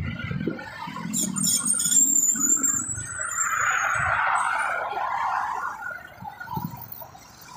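Expressway traffic passing: the tyre and engine noise of passing vehicles swells about three seconds in and fades a few seconds later. A brief high thin whistle comes about a second in.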